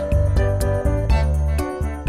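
Background music with a steady beat, a bass line and chiming melody notes.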